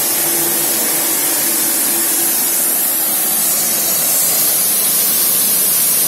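High-pressure washer gun firing a jet of water from a 220-bar, three-piston plunger-pump machine: a loud, steady spraying hiss.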